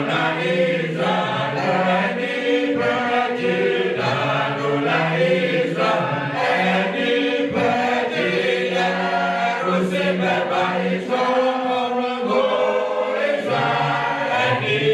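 A church choir singing a hymn, several voices in harmony holding long notes.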